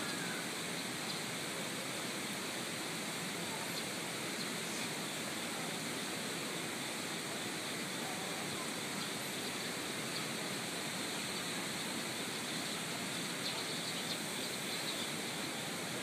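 Steady rushing of a rain-swollen mountain stream, with a few faint bird chirps now and then.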